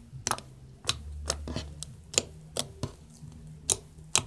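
Fingers squeezing and pressing floam butter slime with foam beads mixed in, giving sharp, irregular clicks and pops, about two a second.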